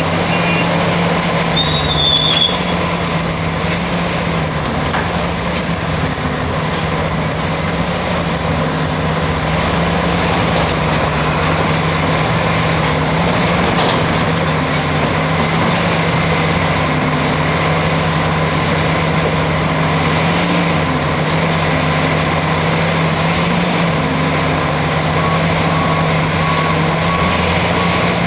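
Caterpillar 375 excavator's diesel engine running steadily under load as it works rock. About two seconds in, rocks land in the steel body of a Cat 769D dump truck with a clatter and a short metallic screech. Near the end a reversing alarm beeps faintly.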